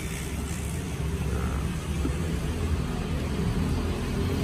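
Steady low rumble of engines, like road traffic close by, with a faint even hum under it.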